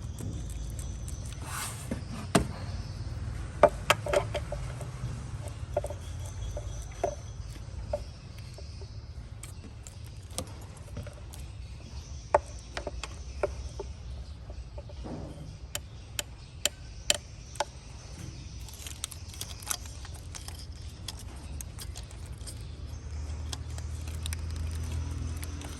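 Hand tools clinking and tapping on metal car parts, in scattered sharp clicks, some in quick clusters, over a steady low hum.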